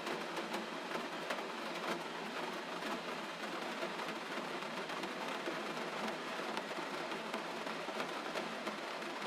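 Gentle rain falling steadily: an even hiss with faint scattered drop ticks.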